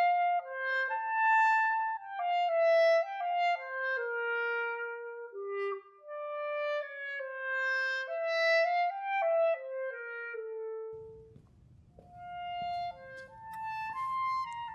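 Solo clarinet playing an unaccompanied melody of quick single notes; the line breaks off briefly about eleven seconds in, then resumes.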